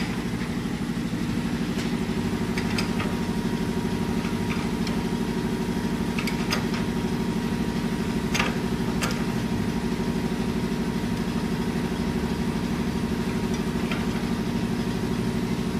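A steady mechanical hum of some running machine, even in pitch and level, with a few light clicks scattered through it as a wrench turns the engine's crankshaft by hand.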